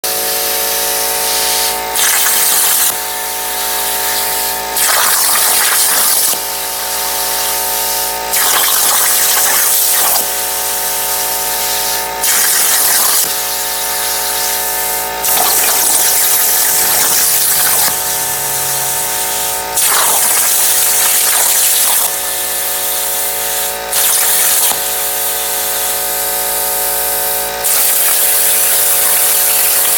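Plasma cutter torch on a CNC plasma table cutting. The arc's hiss starts and stops abruptly in repeated bursts of one to two seconds, over a steady hum of several tones.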